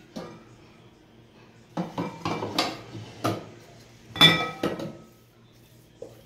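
Kitchen dishes and a utensil clinking and knocking together: a run of scrapes and taps, then the loudest clink about four seconds in, ringing briefly.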